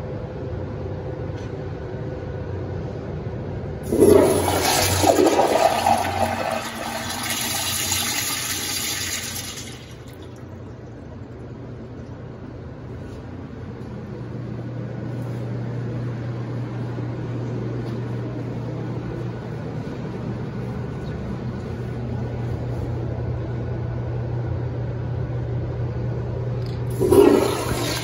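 Mineral-oil toilets flushing through Sloan Dolphin flushometers. A sudden loud rushing flush starts about four seconds in and lasts about six seconds, and a second flush starts near the end. In between, a steady low hum.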